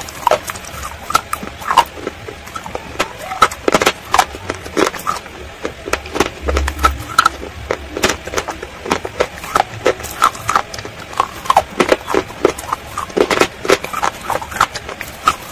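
Close-up crunching and chewing of slate-pencil pieces coated in a wet creamy paste, with irregular sharp crunches several times a second.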